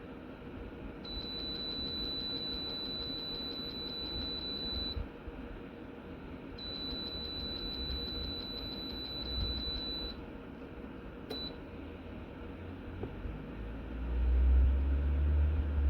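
Two long, steady high-pitched electronic tones of about four seconds each, then a short beep, over a steady low hum. A low rumble swells near the end.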